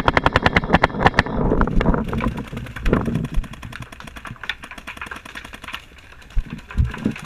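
Paintball markers firing rapid strings of shots, about ten a second. The loudest string comes in the first second or so, then fainter rapid firing goes on, with a few single louder pops.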